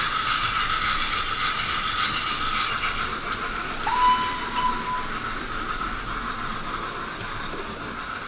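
00 gauge model train running on the layout, its locomotive's DCC sound chip giving a steady running sound, with one short high tone about four seconds in; the sound slowly fades away.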